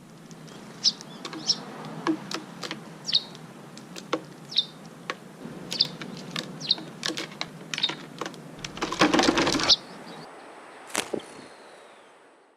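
A small bird chirping in short, high calls repeated roughly every half second to second, among scattered sharp clicks. About nine seconds in there is a brief burst of rustling noise, and a faint steady high tone follows as the sound fades out.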